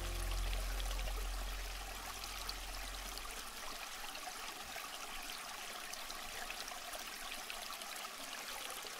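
Water poured over a baby in a bath and splashing off skin and floor: a faint, steady splashing and trickling.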